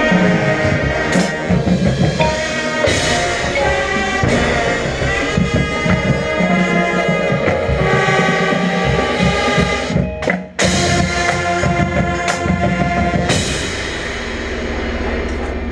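High school marching band playing its field show: brass and woodwind chords over a drumline. The band cuts off sharply about ten seconds in and comes back with a loud full-band hit.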